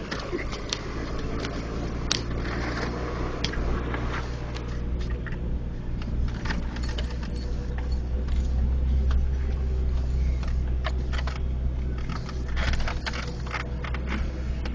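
An off-road vehicle's engine running steadily at low revs, with frequent clicks, knocks and rattles as it works over rough ground.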